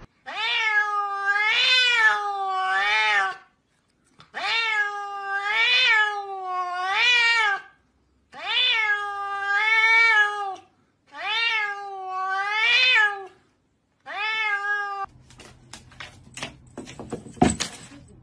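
Domestic cat meowing over and over in long drawn-out bouts, five in all, each made of a few rising-and-falling meows. After that come a few light clicks and taps, one of them sharper near the end.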